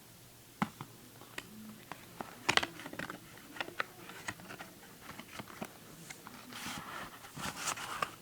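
Handling of Blu-ray disc packaging: scattered light clicks and taps, one sharper tap about two and a half seconds in, with a soft rustle near the end.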